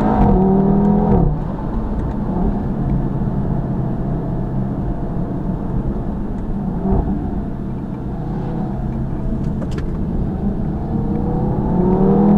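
A 2017 Audi TT RS's turbocharged five-cylinder engine and sports exhaust, pulling hard with its note rising for about a second, then backing off sharply. It cruises at a lower, steadier note under road noise, and the note climbs again as it accelerates near the end.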